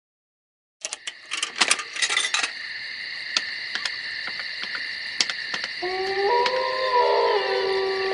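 Opening of an electronic music track: a run of sharp glitchy clicks over a steady high hum, with synth notes stepping in about six seconds in.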